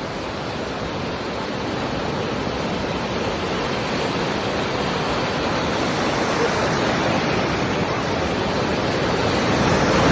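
Ocean surf washing on a beach, a steady rush that builds gradually louder, strongest near the end.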